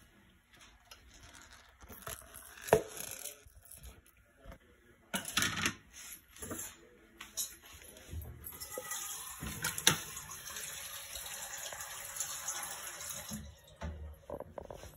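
A few scattered knocks and clicks as the aluminium pressure cooker full of chopped vegetables is handled. Then water runs steadily from a kitchen tap for about five seconds and stops shortly before the end.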